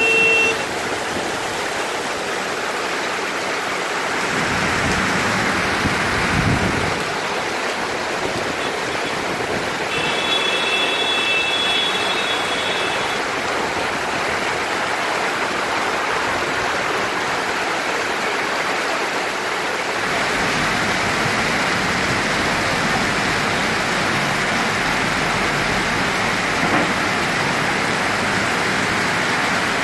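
Heavy rain pouring steadily, a dense even hiss that grows a little louder about two-thirds of the way through. A brief high steady tone sounds for a few seconds near the middle.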